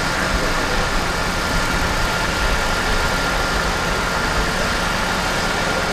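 A running engine, heard as a steady low rumble and hiss with a constant high whine.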